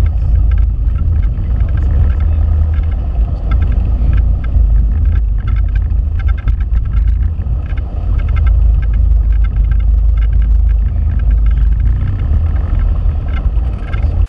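Cessna 172P's four-cylinder Lycoming engine and propeller running at low taxi power: a steady, heavy low drone with frequent short crackles.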